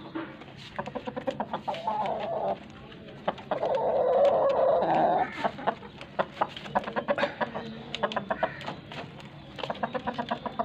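Chickens clucking in quick runs of short notes, in several spells, with one loud, drawn-out call lasting about two seconds, about three seconds in.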